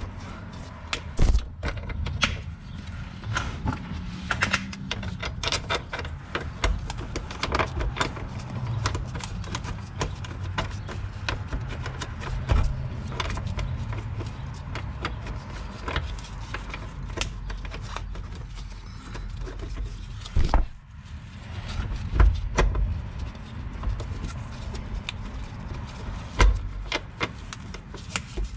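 Irregular metal clicks, taps and knocks as a shift-linkage mounting plate and its bolts are worked into place by hand on the underside of a car, with scraping and handling noise between them.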